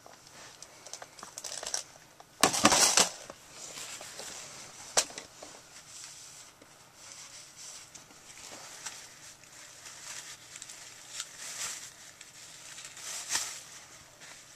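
Rustling and handling noises, the loudest a short scraping burst about two and a half seconds in, with one sharp click about five seconds in.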